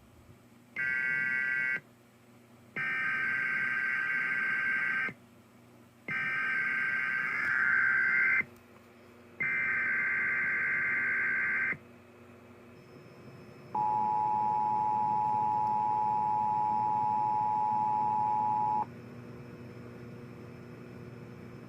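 Emergency Alert System tones on NOAA Weather Radio: a short burst and then three longer bursts of screechy digital SAME header data, each a couple of seconds long, followed by the steady two-tone EAS attention signal for about five seconds, which cuts off abruptly into a low hiss.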